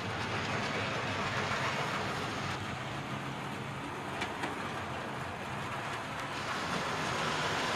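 Model railway tank locomotive and its coaches running along the track: a steady whirr of the small motor and wheels on the rails, with a couple of clicks about halfway through.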